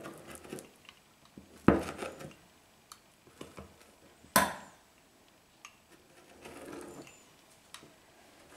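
A metal pastry wheel cutting a thin sheet of dough on a tabletop: light rolling and scraping with scattered clicks, and two sharp knocks, one just under two seconds in and one a little past four seconds.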